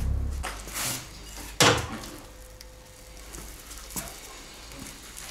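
Metal clanks and knocks of a motorcycle lift jack as the heavy bike is let down off it and the jack pulled clear, with one loud clank nearly two seconds in and a smaller click a couple of seconds later.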